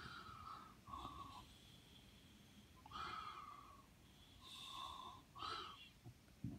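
A person breathing softly while writing: about five faint breaths in and out, a second or two apart.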